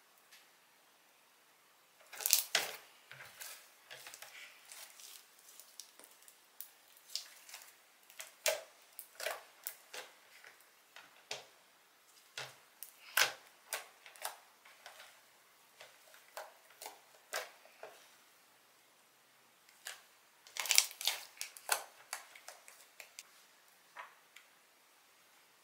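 Homemade slime being squeezed and poked by hand, making irregular sharp clicks and pops in scattered bursts with brief pauses.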